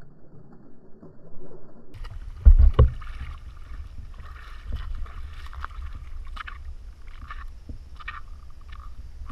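Water splashing and sloshing as a corgi puppy wades through shallow pond water right by the camera, with short splashes coming every half second or so. It is muffled for the first two seconds, then clearer over a low steady rumble, with a heavy thump about two and a half seconds in.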